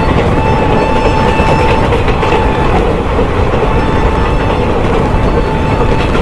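Passenger train coach running at speed, heard from its open doorway: a loud, steady rumble of wheels on the rails and rushing air. A thin, high whine comes and goes over it.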